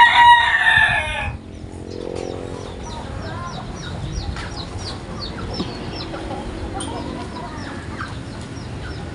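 A rooster of native village chickens crowing, one loud held crow that ends about a second and a half in. After it come quieter, lower calls from the flock, over faint rapid high chirping.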